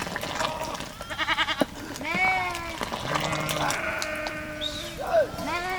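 A flock of sheep bleating, many overlapping calls one after another, some short and quavering, some long and drawn out.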